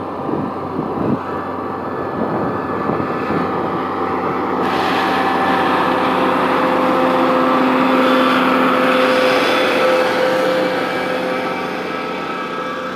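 Lamborghini R6.130 tractor's six-cylinder diesel engine running steadily under load while pulling a reversible plough through the soil. It grows louder toward the middle, then eases off slightly near the end.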